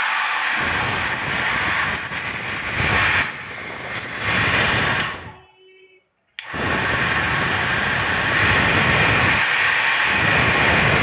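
Mundial mini hair dryer running with a steady rushing blow that rises and dips for a few seconds. About halfway through it is switched off and winds down, falls silent for a moment, then comes straight back on and runs steadily. It is being tested after repair.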